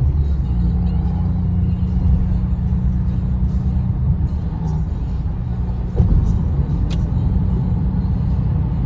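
Tyre and road noise from a car driving on highway pavement, heard inside the cabin as a steady low drone. There is a thump about six seconds in and a brief sharp tick about a second later.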